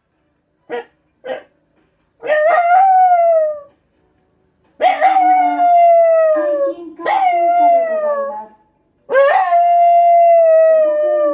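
Black Shiba Inu giving two short yips, then howling four times, each howl rising at the start and slowly falling in pitch. The dog is howling in answer to a passing junk-collection truck.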